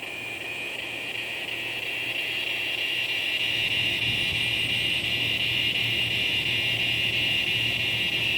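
Cicadas singing in a steady, high, buzzing chorus that swells louder over the first few seconds and then holds. A low rumble runs underneath.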